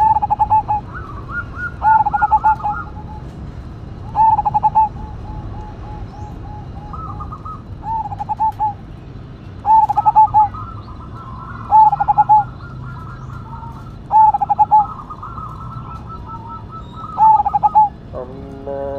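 Zebra dove (perkutut) in full song: loud, rapid rippling trills of coos about half a second long, repeated about every two seconds, with fainter, higher coos running in between.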